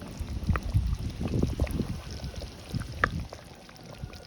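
A spoon scooping through thick gravy in a pot, with irregular low bumps and a couple of sharp clinks of metal on the pot, the loudest about three seconds in.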